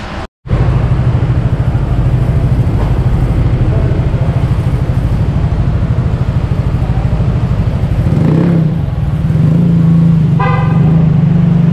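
Motorcycle engine running steadily with a pulsing beat, picking up slightly about eight seconds in, and a short horn toot about ten and a half seconds in.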